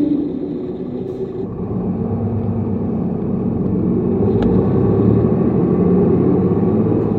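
Tokyu city bus (AO1131) running on the road, its engine and drivetrain giving a steady low drone. The engine note drops about a second and a half in and builds again from about four seconds as the bus pulls away, with one short click near the middle.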